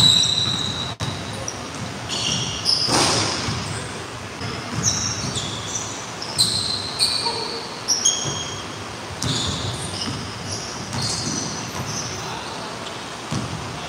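Basketball dribbled and bounced on a hardwood gym floor, with many short, high sneaker squeaks as players cut and stop, echoing in a large gym. About three seconds in comes one brief, louder noise.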